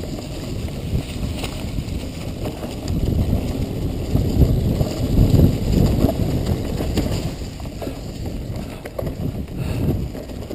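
Mountain bike descending a rough trail: tyres rolling over dry leaves and rock, the bike rattling and knocking over bumps, with wind buffeting the microphone. Rougher and louder a few seconds in.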